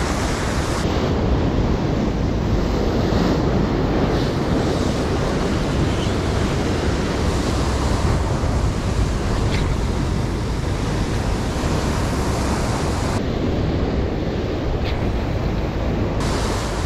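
Rough sea surf breaking and churning against a rocky cliff, with wind buffeting the microphone.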